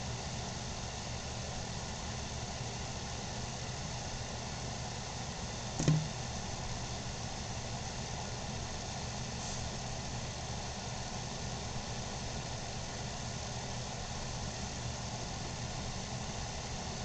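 Steady low mechanical hum, with one short knock about six seconds in.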